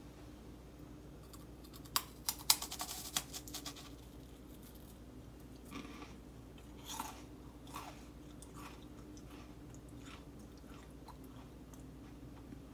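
Crisp meringue cookies being bitten and chewed: a quick run of sharp crunches about two seconds in, then a few softer crunches.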